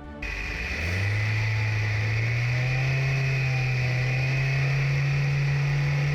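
A car engine revving up and held at high revs, its pitch climbing slowly, with a steady high-pitched whine over it.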